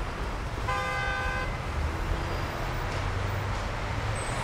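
City street traffic running steadily, with a car horn honking once, briefly, about a second in.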